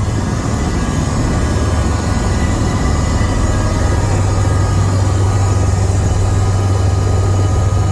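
Bell 407 helicopter running, heard from inside the cabin: a steady low hum under a constant rushing noise from the turbine and rotors.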